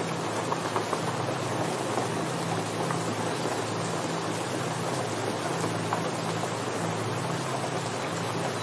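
Steady hiss of heavy rain falling onto rushing floodwater, with a low rumble underneath.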